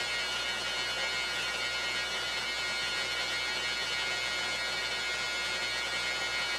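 Belt grinder running steadily: a low motor hum under an even hiss from the moving abrasive belt, with a faint high whine, all holding at one level.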